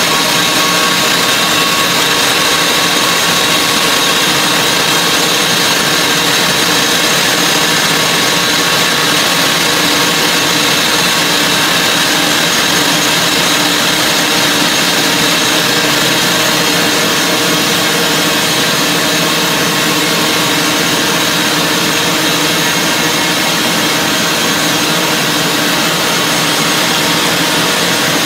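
Mining drill rig's boom-mounted drill boring into the rock-salt face: a loud, steady machine noise that never lets up.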